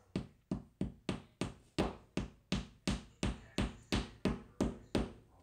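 A plastic drywall anchor being tapped into its hole in the drywall: about fifteen even taps, roughly three a second.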